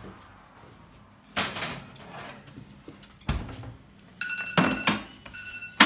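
A metal baking tray holding a blind-baked pastry case in its tart tin is taken out of the oven and set down on the hob, with several sharp metal knocks and clanks. From about four seconds in, an electronic timer beeps on and off.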